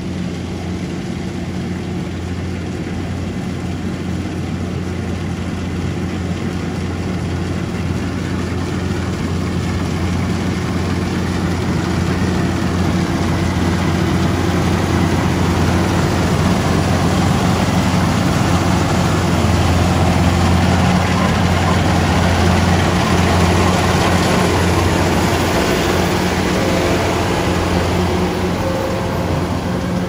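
Kubota DC-105X rice combine harvester running while harvesting: a steady diesel engine hum over the rush of its machinery. It grows louder over the first twenty seconds and eases slightly near the end.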